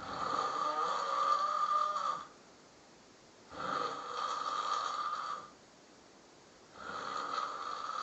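A sleeping person snoring loudly: three long snores of about two seconds each, one roughly every three and a half seconds, with quiet breaths between them.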